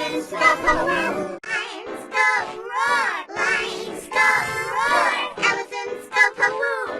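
Children's song with sung vocals over music, the voice heavily effects-processed.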